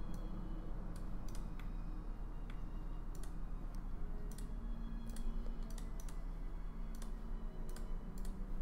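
Computer mouse and keyboard clicks, single sharp clicks at irregular intervals, over a faint steady low hum.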